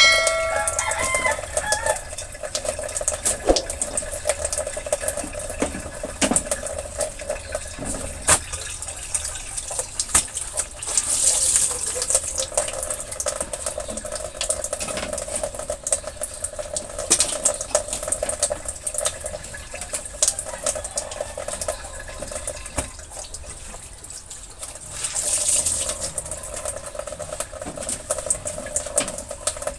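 A cloth wiping and rubbing over the enamel top of a gas range, a steady scratchy scrubbing that swells about twelve seconds in and again near the end. A short rooster crow sounds at the very start.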